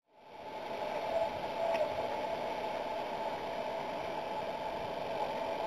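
Steady outdoor background noise of a ballfield picked up by the game camera's microphone, fading in about a quarter of a second in after a brief silence.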